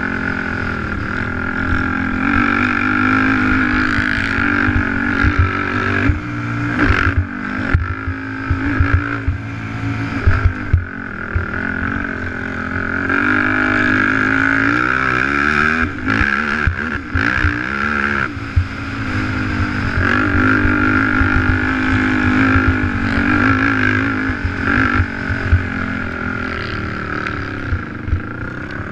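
Race quad's engine heard from on board, revving up and dropping off with the throttle as it is ridden hard over a dirt track, with short knocks and clatter here and there.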